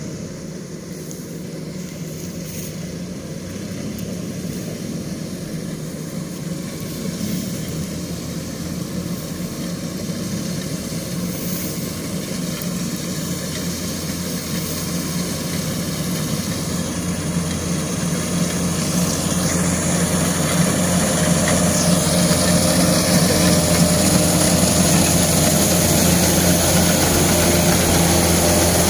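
Kubota DC-105X combine harvester running steadily while cutting rice, its engine hum growing louder as it comes closer.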